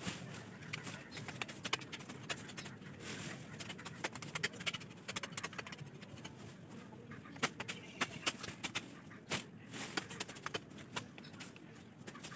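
Irregular clicks and rustling of leaves and plant stalks being pulled and handled, several sharper snaps between about 7 and 10 seconds in.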